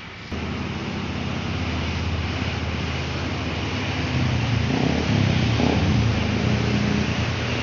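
A large diesel cargo truck passing close by on a highway, its engine running with a low hum over tyre noise on the road, getting louder and loudest from about four to seven seconds in.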